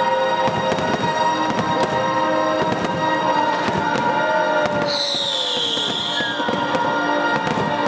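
Fireworks crackling and popping in rapid succession over sustained music. A high whistle and hiss come through about five seconds in.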